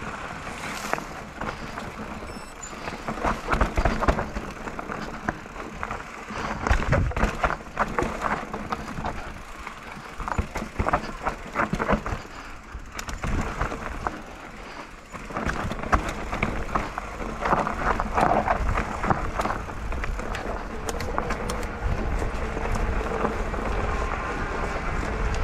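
Mountain bike riding down a rough downhill trail: the tyres run over loose, bumpy ground and the bike rattles with many irregular sharp knocks and clatters.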